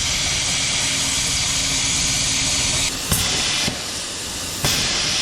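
Plasma cutter cutting the steel shock tower: a steady, hard hiss that cuts out about three seconds in and starts up again near the end.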